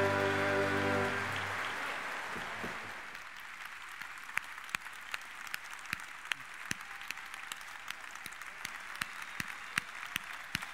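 A symphony orchestra holds its final chord, which ends about a second in, under audience applause. The applause fades and thins to scattered single claps.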